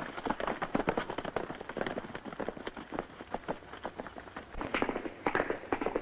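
Several horses galloping, a fast, irregular clatter of hoofbeats.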